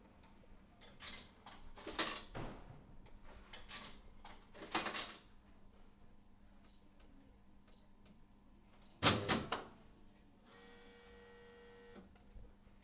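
Vending machine in use: a few knocks and clinks, three short electronic beeps from its keypad about a second apart, a louder clatter, then its motor whirs for about a second and a half and stops with a click.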